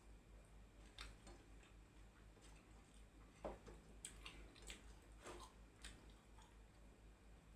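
Faint chewing and wet mouth clicks of someone eating, as scattered soft clicks with a couple of short squelchy sounds.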